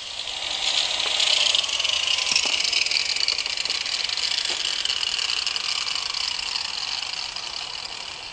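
Electric angle grinder working Carrara marble: a steady high whine with grinding noise, growing gradually fainter toward the end.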